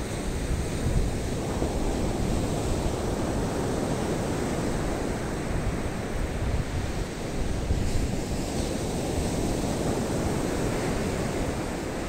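Surf breaking steadily on a sandy beach in a rough sea, with wind rumbling on the microphone.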